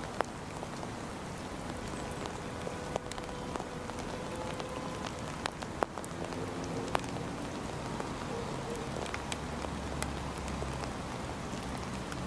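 Steady rain falling, with scattered sharp drips and ticks. From about halfway, a train's low hum and steady tones join underneath.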